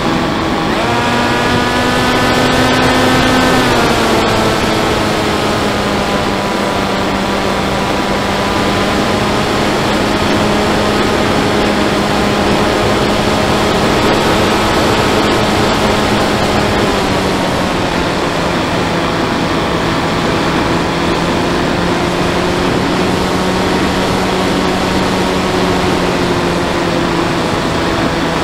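Motor and propeller of a fixed-wing FPV model plane heard through its onboard camera, a steady whine over constant wind rush. The pitch rises about a second in, drops near four seconds and again around seventeen seconds as the throttle changes.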